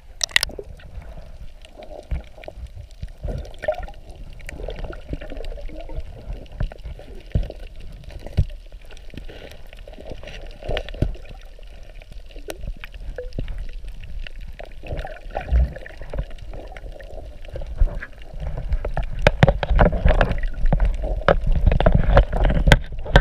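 Muffled water sound from a camera held underwater: churning and gurgling water with scattered clicks and knocks, the low rumble and knocks growing louder in the last few seconds.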